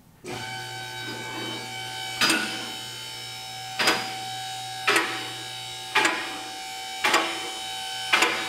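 Two-post car lift's electric-hydraulic power unit starting and running steadily as it raises a car. Its safety locks click sharply about once a second as the carriages rise past each latch.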